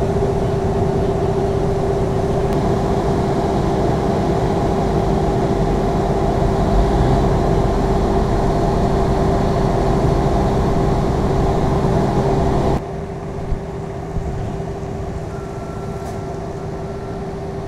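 Steady drone of engines and fire pumps running under load to feed water cannons, with a constant hum through it. The level drops suddenly to a lower drone about thirteen seconds in.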